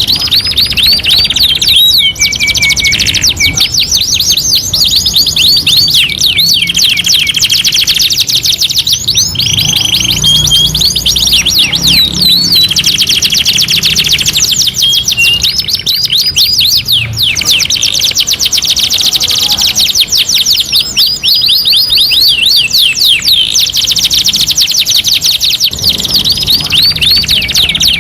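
Domestic canary song: long, fast trills of rapidly repeated notes that change type every few seconds, with a few short held whistles between the rolls.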